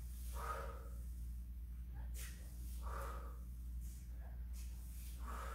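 A woman breathing hard from exertion while doing kicks on hands and knees: a loud breath about every two and a half seconds, with short hissy breaths between, over a steady low hum.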